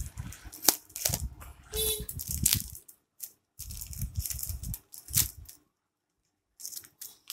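Paper and packing tape being peeled and torn off a cardboard shipping box, with crinkling and rustling as the box is handled. The noise comes in irregular bursts with clicks, broken by two short pauses.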